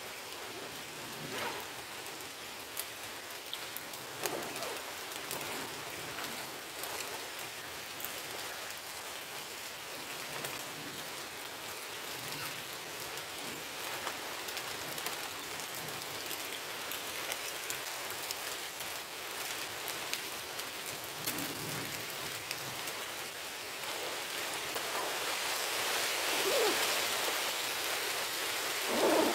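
Steady rain falling on the leaves of the woodland, a fine even hiss with many small drop ticks, growing a little heavier near the end. Now and then a faint rustle from a rucksack being searched through.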